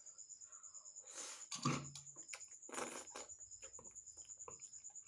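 Crickets chirping in a steady, high, pulsing trill, with two short rushes of noise about one and three seconds in and a few faint clicks.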